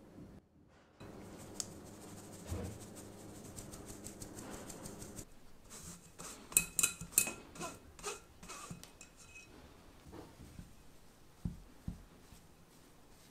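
Flour and cocoa powder being sifted through a stainless steel mesh sieve: a soft steady scraping as a silicone spatula rubs the powder through the mesh. Around halfway through comes a cluster of sharp, ringing clinks from the metal sieve and glass bowl. Near the end there are two soft thumps as the spatula goes into the bowl.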